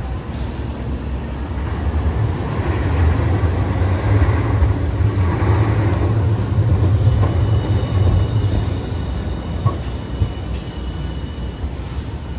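Hiroden Green Mover LEX low-floor tram passing close by on curved street track. Its running rumble swells to a peak mid-way and eases off, with a faint high wheel squeal in the second half and two sharp clicks near the end.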